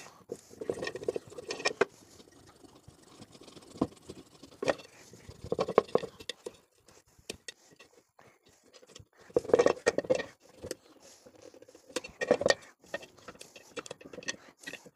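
Kitchen knife scraping, cutting and prying at a hardened rubber safety valve set in a pressure cooker lid, in irregular scratchy bursts with small clicks; the rubber has gone hard, so it is slow to cut free.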